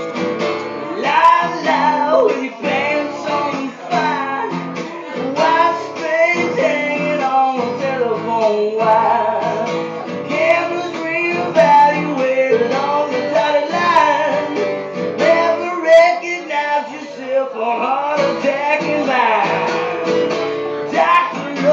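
Acoustic guitar strummed, with a voice singing a melody over it.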